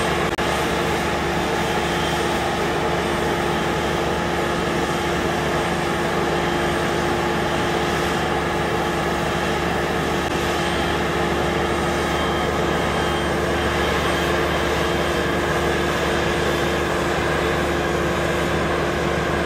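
Heavy equipment diesel engine running steadily at constant speed, a loud even hum with a constant tone.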